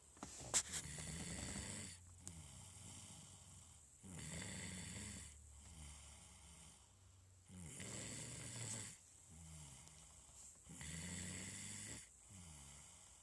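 Slow, regular snoring: four loud snores about three and a half seconds apart, with softer breaths between. A sharp click sounds about half a second in.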